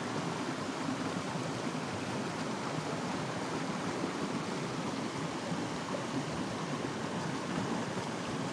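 Shallow rocky river flowing, a steady rush of water.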